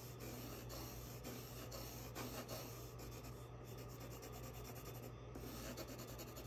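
Blue colored pencil rubbing across blue construction paper in quick, repeated strokes: a faint, scratchy shading sound.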